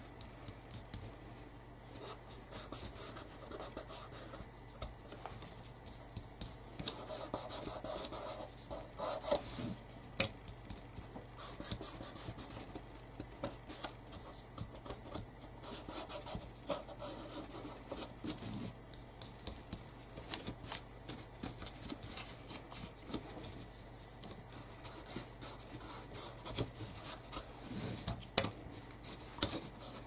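Hands working on craft pieces at a table: light scratching and rubbing with many small scattered clicks and taps.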